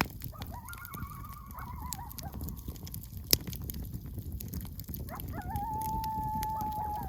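Coyotes howling and yipping close by: a wavering, warbling chorus in the first couple of seconds, then a long, steady howl from about five seconds in. Small crackles from a juniper campfire run underneath, with one sharp pop about halfway through.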